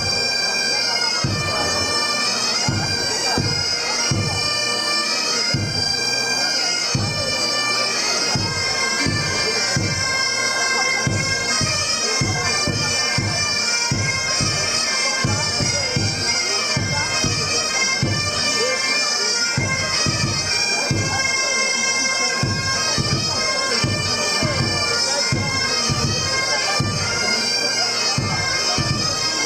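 A Breton bagad playing a tune: bombardes and bagpipes sound a loud reedy melody over the pipes' drone. A bass drum beats steadily underneath.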